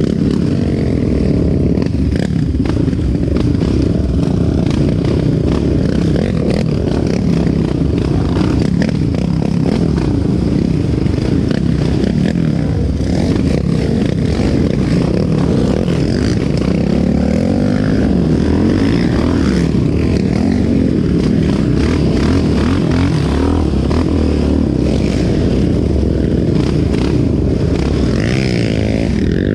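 Yamaha Raptor 700R's single-cylinder four-stroke engine running steadily under way, its revs rising and falling with the throttle.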